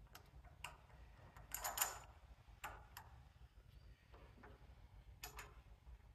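Light, scattered metallic clicks and clinks from handling an exhaust-tube flaring tool and its fittings on a metal workbench. The loudest is a short rattle about two seconds in.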